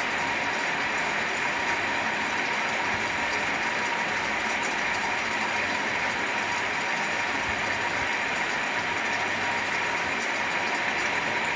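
Electric fan running steadily: an even rushing noise with a faint steady tone.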